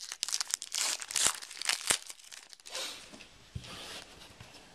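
Foil wrapper of a 2010 Epix football trading card pack being torn open and crinkled by hand. It crackles densely for about the first three seconds, then rustles more softly as the cards are drawn out.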